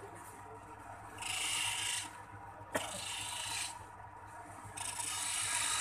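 A chisel cutting into spinning wood on a lathe: a dry scraping hiss in three passes of about a second each, with a sharp click just before the second pass. A low steady hum lies under it.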